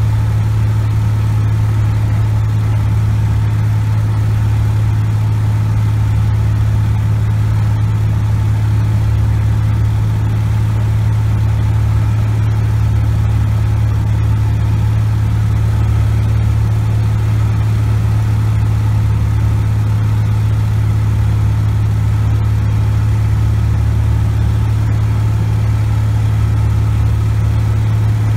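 Cessna 180 Skywagon's flat-six Continental O-470 engine and propeller running steadily in flight, heard from inside the cabin as a loud, even drone.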